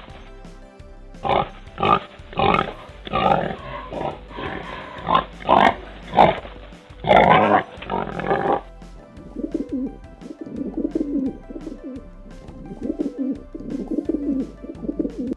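A pig grunting in a rapid run of short grunts, then, about eight and a half seconds in, an abrupt change to a bird's soft, low repeated calls. Faint background music runs underneath.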